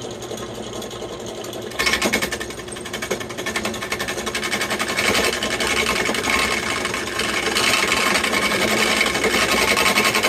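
Drill press spinning a block of longleaf pine while a hand chisel shaves it like a lathe tool: a fast, even chatter of the cutting edge against the turning wood. It turns louder and harsher about two seconds in, as the chisel bites.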